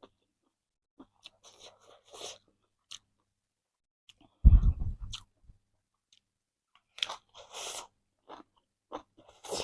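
Close-up chewing and crunching of chicken in irregular bites, with one loud low thud about four and a half seconds in.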